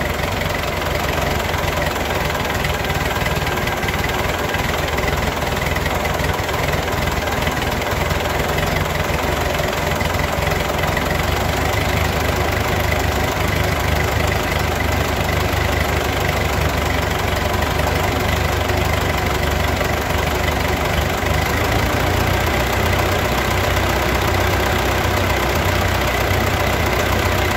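Ford 8N tractor's four-cylinder flathead engine idling steadily while its carburetor idle mixture screw is being set.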